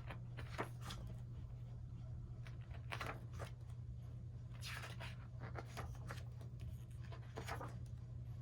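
Paper rustling and brushing as the pages of a photobook are handled and turned, in short scattered strokes over a steady low hum.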